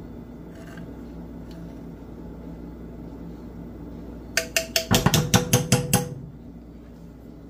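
A steady low hum, then about four seconds in a quick run of a dozen or so sharp metal clinks with a ringing tone, lasting under two seconds: a metal spoon rapped against the rim of a saucepan.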